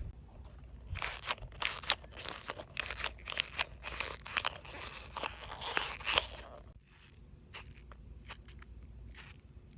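Fidget toys squeezed and handled close to the microphone, giving crunching, crackling clicks. The clicks come thick and fast from about a second in, then thin out to scattered single clicks after about six seconds.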